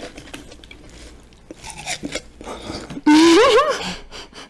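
Faint small clicks and mouth sounds, then about three seconds in a short, loud, high-pitched vocal squeal from a person whose pitch rises and wobbles up and down.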